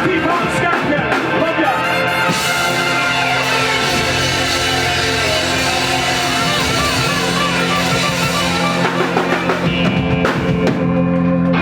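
Live ska band playing loud, with the drum kit to the fore and no singing. Long chords are held through the last few seconds.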